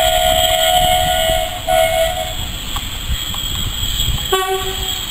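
Steam locomotive whistle blowing a long, steady blast, with a short break before it stops about two and a half seconds in. Near the end a lower-pitched whistle sounds briefly, over the low rumble of a train moving past.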